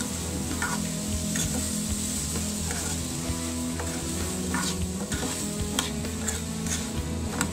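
Potato, carrot, onion and green chilli chunks sizzling in hot oil in a steel kadai while being stirred with a metal spoon. The spoon scrapes and clinks against the pan now and then, more often in the second half.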